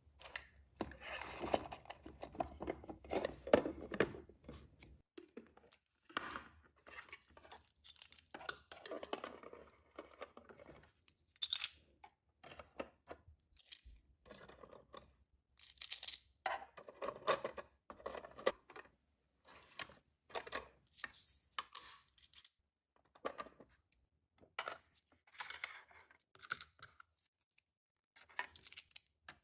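Irregular rustling, tearing and small clicks of plastic packaging and tiny plastic miniature pieces being handled, busiest in the first few seconds.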